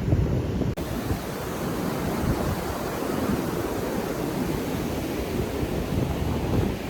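Heavy surf breaking and rushing on a beach, with wind buffeting the microphone. A brief dropout about a second in, where the sound changes abruptly.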